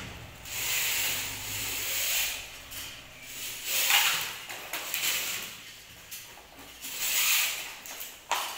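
Electrical wires being pulled through a ceiling conduit pipe, the insulation rubbing along the pipe in a few hissing, swishing pulls of a second or so each, the strongest about four seconds in.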